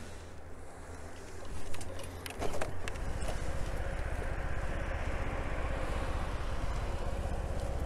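Motorcycle engine running, with a couple of sharp knocks about two seconds in. From about three seconds the engine sound gets louder and holds steady.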